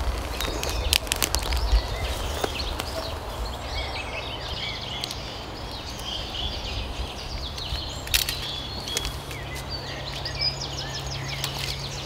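Small birds chirping and calling over outdoor forest ambience, with crackles and snaps of dry twigs and leaves underfoot in the first couple of seconds and one sharp snap about eight seconds in.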